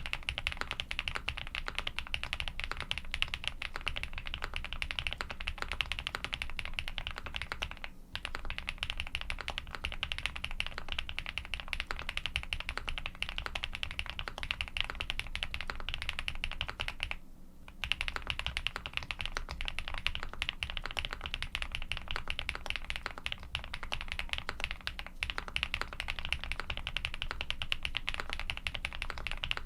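Fast, continuous typing on a Mr. Suit custom mechanical keyboard with lubed Durock Cobalt POM switches, a polycarbonate plate and GMK keycaps: a dense stream of keystroke clacks. It pauses briefly about eight seconds in, and for about half a second a little past halfway.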